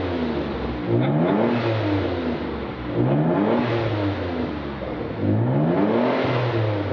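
Mitsubishi 3000GT's V6 revved three times through its newly fitted aftermarket exhaust, each time climbing and dropping back to idle; the exhaust note is punchier than the original.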